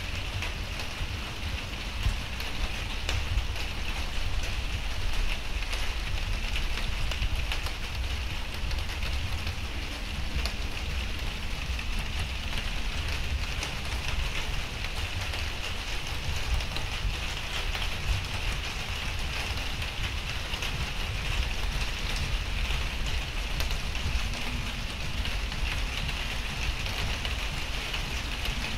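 Steady rain falling: a continuous even hiss with scattered single drop taps, over a low steady rumble.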